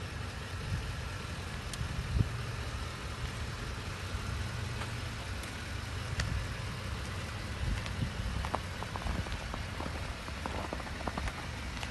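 2010 Ford F-150's V8 engine idling steadily with a low rumble, with a scatter of small ticks toward the end.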